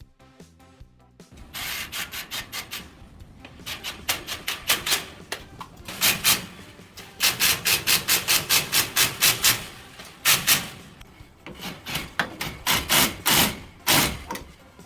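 Rapid rhythmic scraping strokes, about six a second, in runs broken by short pauses, with background music under them.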